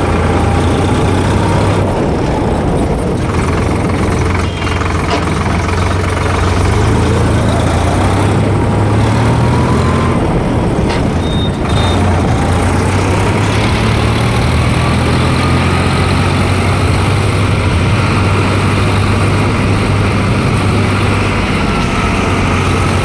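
Sonalika Tiger DI 50 tractor's diesel engine running under way, heard from the driver's seat: a steady low drone with a whine above it that rises and falls in pitch several times as the speed changes.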